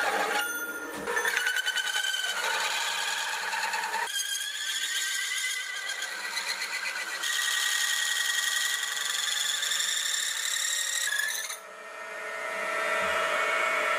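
A wood-cutting hole saw, turned by a milling machine, cuts through aluminium plate with a high-pitched squealing ring that shifts in pitch as the cut goes on. The sound dips briefly near the end, as the saw reaches the wooden backing board beneath.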